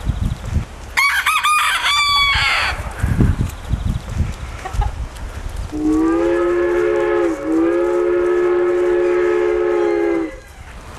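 Rooster crowing about a second in. From about six seconds in, a long steady pitched call or tone holds for over four seconds with a brief dip partway and stops suddenly.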